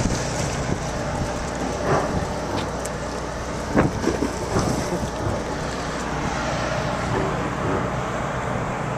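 Steady low hum of a ship's engines under a wash of wind and rushing sea, with a couple of brief knocks about two and four seconds in.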